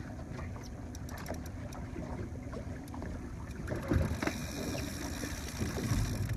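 Boat motor running with a steady low rumble. A few faint clicks come early, and a hiss grows through the second half.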